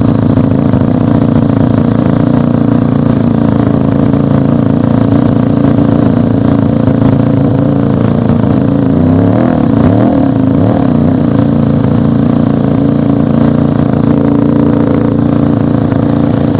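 Motorcycle engine running steadily under way, heard close up, its note wavering up and down briefly about halfway through.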